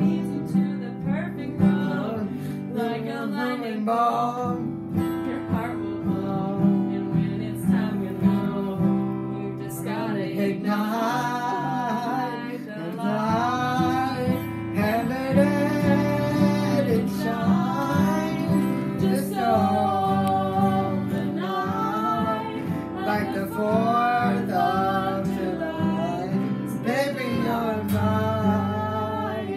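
Two acoustic guitars strummed together, with singing over them throughout.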